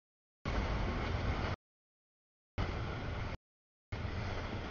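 Freight train of double-stack container cars rolling past, a steady rumble of steel wheels on rail. The sound is cut into three short stretches by dead-silent drop-outs in the audio feed.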